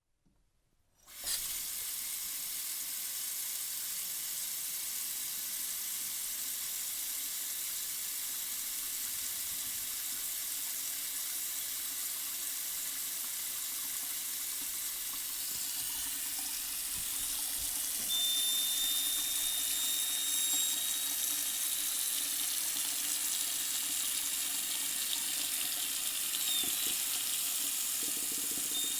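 Kitchen faucet turned on about a second in, then running steadily into the sink with an even hiss of water. Partway through, a thin high whistle joins the flow, which is what makes the faucet noisy.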